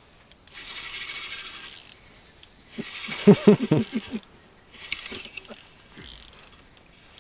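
Spinning reel being cranked by hand, its gears whirring and clicking in short spells, as a fish is reeled up through the ice hole. About three seconds in there is a brief, louder run of low pulsing sound.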